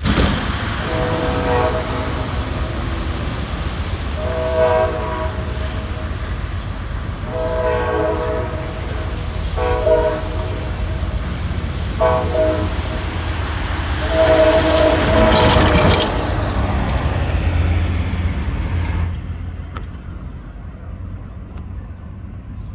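Amtrak passenger train's diesel locomotive sounding its multi-note air horn as it approaches, in a series of about six blasts, one of them short and the last the longest. A steady low rumble of the train runs underneath and eases off near the end.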